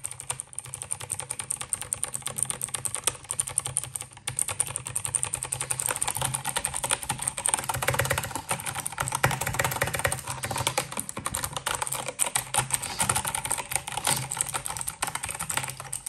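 Fast typing on an Acer Predator Aethon 500 mechanical gaming keyboard with clicky blue switches: a dense, continuous stream of key clicks, with a brief lull about four seconds in.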